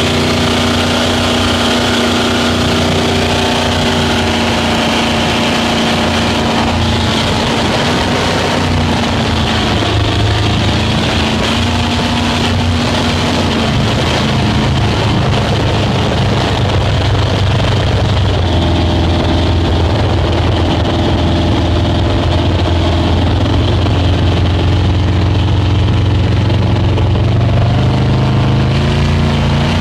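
Speedboat engine running under way, a steady drone with its pitch shifting a few times, over a constant rush of wind and water.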